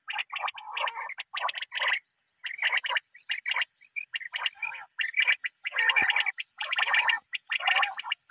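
Recorded bird calls played back loud through horn loudspeakers: bursts of rapid, rattling calls, each under a second long, broken by short gaps.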